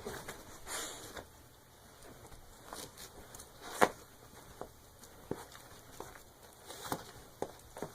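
A dog chewing and tearing at a stuffed plush toy: scattered soft clicks and rustles of teeth and fabric, with one sharper snap about four seconds in.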